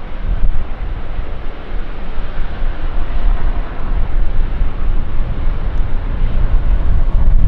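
Steady low rumble and hiss of an Airbus A350-900's Rolls-Royce Trent XWB jet engines on takeoff, growing slightly louder toward the end.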